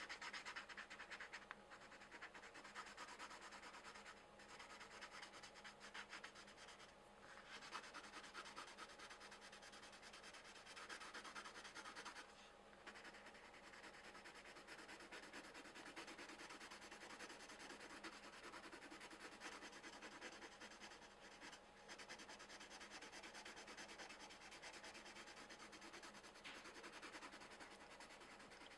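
Coloured pencils shading on coloring-book paper: a faint, continuous scratchy rubbing of quick back-and-forth strokes, broken by a few brief pauses.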